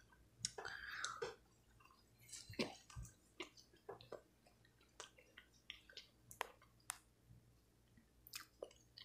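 Faint chewing of fast-food chicken nuggets close to the microphone: irregular soft mouth clicks and smacks.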